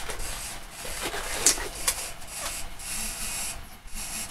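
Blue disposable gloves being pulled on by hand: rubbery rubbing and stretching, with two sharp snaps about a second and a half in.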